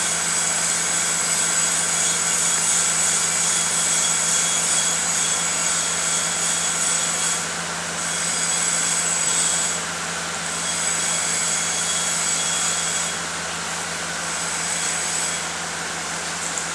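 Steady machine noise: an even hiss with a high whine and a low hum, the hiss and whine easing off and coming back every few seconds.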